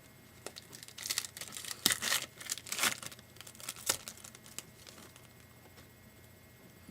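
Trading-card pack wrapper crinkling as it is torn open and handled, a run of crackling rustles for about three and a half seconds that then dies down to faint ticks.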